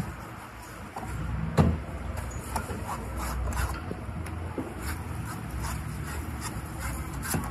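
Large knife chopping and slicing the green husk off young coconuts on a wooden block: a string of sharp knocks and cuts, the loudest about a second and a half in, over a steady low background rumble.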